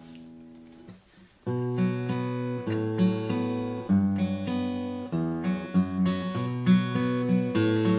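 Custom shop Martin Style 28 acoustic guitar, with a Sitka spruce top and Madagascar rosewood back and sides, being played. A chord rings out and fades, then after a short pause about one and a half seconds in, playing resumes with moving bass notes under repeated chords.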